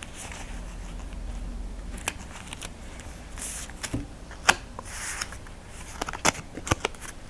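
Paper handling: light clicks and taps, with a couple of short rustles, as the adhesive backing is lifted with a bloom tool and peeled off a small piece of patterned paper.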